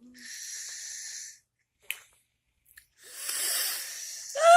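Two long, hissing breaths, a person's put-on snoring blown close to the ear, with a short click between them. Just before the end a voice starts a whine that falls in pitch.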